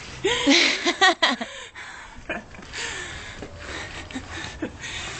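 A woman laughs breathlessly in the first second and a half while working a hand pump to force the last few PSI into an inflatable stand-up paddleboard. The pump's air rushes out in a hiss on each slow, hard stroke, about every two and a half seconds, with heavy breathing between them.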